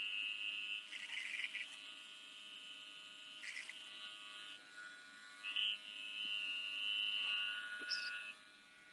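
Cordless hair clipper running with a thin, steady motor hum. A higher buzz comes and goes in several stretches as the blades cut along the hairline's baseline, and it drops away near the end.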